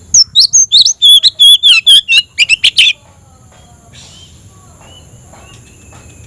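Oriental magpie-robin (kacer) in full challenging song: a loud, rapid burst of sharp whistled and chattering notes for about three seconds, then a few softer, sparser notes.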